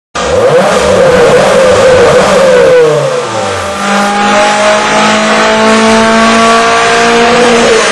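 Car engine at high revs: its pitch falls over the first three seconds, then climbs steadily for about four seconds and drops sharply near the end, like a gear change under hard acceleration.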